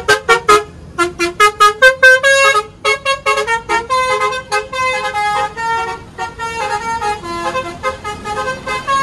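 Toy city bus's electronic sound chip playing a loud, rapid run of short horn-like toots that keep changing pitch, like a quick electronic jingle.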